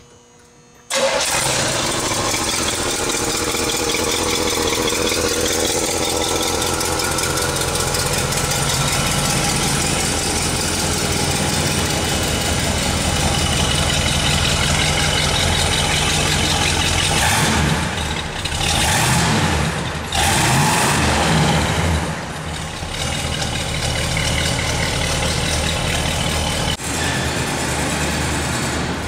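1968 Oldsmobile 442's rebuilt 400 V8 running. It comes in suddenly about a second in and idles steadily, with the revs rising and falling a few times past the middle.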